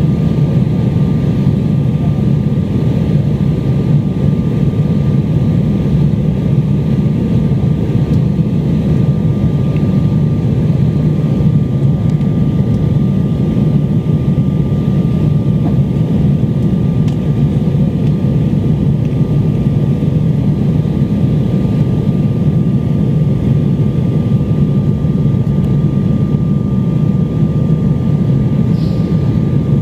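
Steady jet airliner cabin noise in flight: a low, even rush of engine and airflow noise with a thin steady whine running through it.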